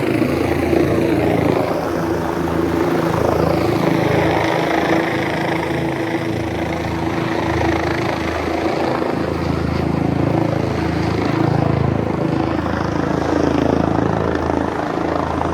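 A steady engine rumble with a constant low hum.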